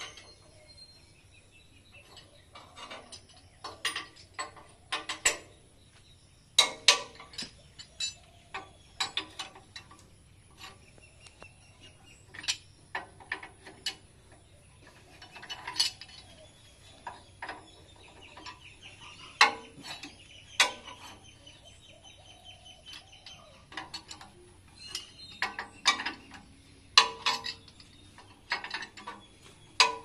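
A hand wrench working the nuts on a power tiller's metal wheel hub: irregular sharp metallic clicks and knocks, some ringing briefly, with short quicker runs of clicking.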